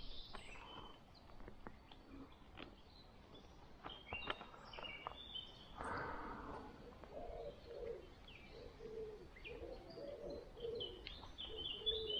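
Birdsong: a pigeon cooing in a run of repeated low notes from about seven seconds in, with small birds chirping higher. A few faint clicks sound in the first half.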